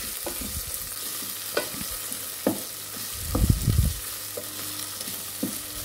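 Onions, tomatoes and green chillies sizzling in groundnut oil in a stainless steel pot as a wooden spatula stirs them. Scattered scrapes and knocks of the spatula against the pot come through the steady sizzle, with a cluster of duller thumps around the middle.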